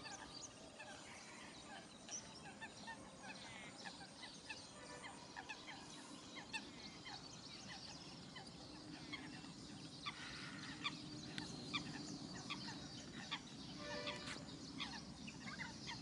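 Many birds calling at once, faint: a stream of short overlapping calls and chirps, a little busier in the second half.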